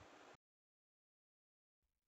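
Near silence: a faint trace of room sound cuts off about half a second in, leaving dead digital silence.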